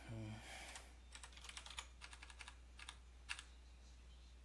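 Computer keyboard keys tapped in short irregular runs of clicks as editor commands are typed, with a brief hum of voice right at the start.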